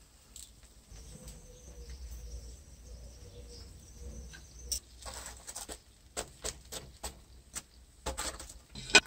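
Scattered crackles and pops from meat and chicken grilling over wood embers on a barbecue grate, sparse at first and thickening about halfway through, with one sharper click just before the end.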